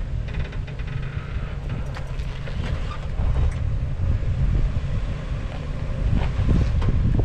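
Wind buffeting the microphone as a steady low rumble, over the low sound of an off-road vehicle's engine crawling on the rocks, with a few faint knocks.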